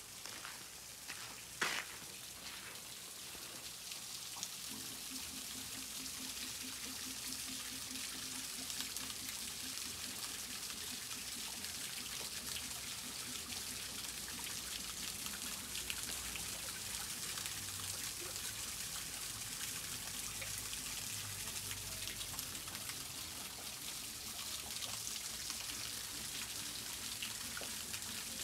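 Steady hiss and fine patter of falling rain, with a single sharp click about two seconds in.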